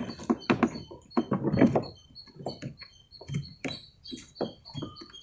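Irregular clicks and knocks of hand tools and screws on the plastic body of a top-loading washing machine while its body screws are being undone, busiest in the first two seconds.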